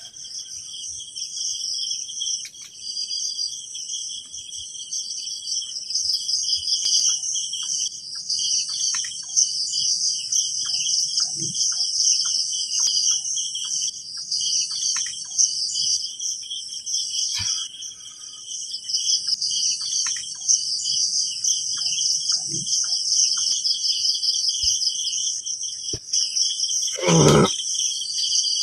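A chorus of crickets trilling steadily through the night air. About 27 seconds in, a loud, low roar lasting under a second.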